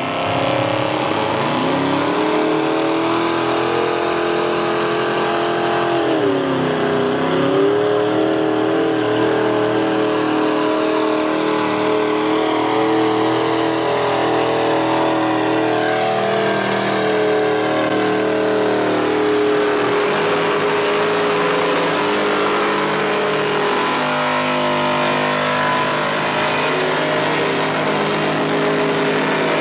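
Big-block Chevy 540 V8 of a mega truck held at high revs under full load in a tug-of-war truck pull. The revs sag briefly about six seconds in, climb back, then hold steady.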